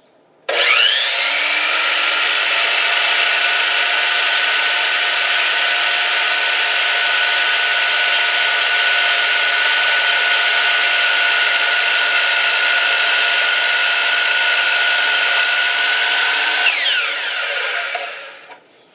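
Electric power saw spinning up, running steadily for about sixteen seconds while cutting pallet-wood boards to length, then winding down with a falling whine near the end.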